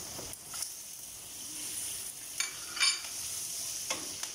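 Shrimp and pork sizzling as they are stir-fried in a steel wok, with a wooden spatula scraping against the wok a few times and one sharp ringing clink about three seconds in.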